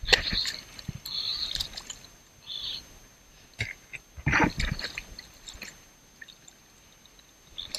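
Water splashing and sloshing in short bursts around a pelican caught in mangrove branches, with a sharp splash at the start and another about four seconds in, then a few fainter drips.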